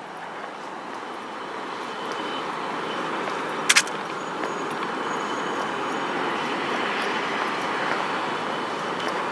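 Steady traffic noise that slowly grows louder, with one sharp click a little under four seconds in.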